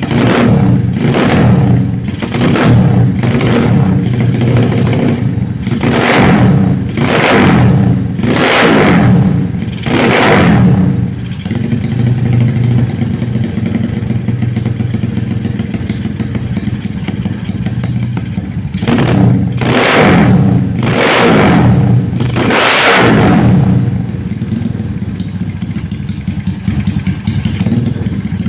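Motorcycle exhaust through a Creampie CP3 aftermarket muffler with a baffle insert: the engine idles and is blipped, with a quick run of about nine short revs, several seconds of steady idle, then three or four more revs before settling back to idle.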